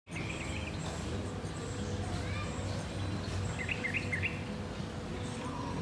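Small birds chirping outdoors: a short chirp at the start and a quick run of chirps about halfway through, over a steady low background rumble.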